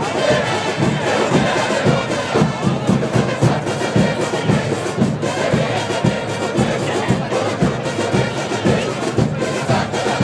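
A football supporters' band in the stands: drums pounding a steady beat with brass playing over it, and the crowd around joining in.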